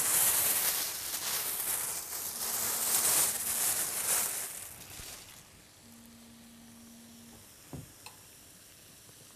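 Food sizzling and spitting in a frying pan on an electric hot plate. It is loud and uneven for about five seconds, then falls to a faint hiss, with a steady low hum and a single soft thump near the end.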